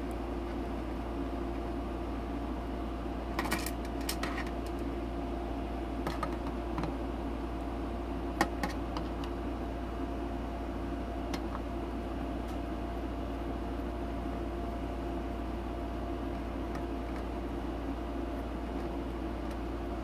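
Screwdriver turning screws out of the sheet-metal bottom panel of a security DVR: a few scattered light clicks and ticks of metal on metal, several seconds apart, over a steady low hum.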